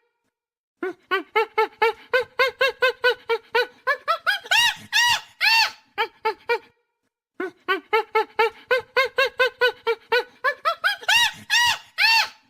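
Chimpanzee pant-hoot: a run of quick rhythmic hoots, about five a second, that climbs into a few long high screams. It comes twice, each run starting after a pause of under a second.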